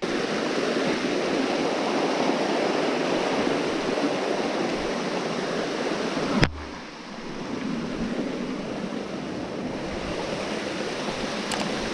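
Small forest waterfall rushing and splashing down over mossy rocks in a steady stream of water noise. A single sharp click comes about six and a half seconds in, after which the rush is a little softer.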